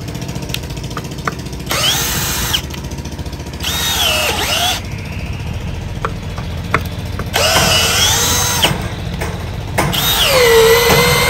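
Milwaukee M12 Fuel brushless hammer drill driving a long screw into wood: the motor whines in several spells, its pitch falling as the screw bites, then stopping short as the electronic anti-kickback cutoff shuts the motor off at full torque.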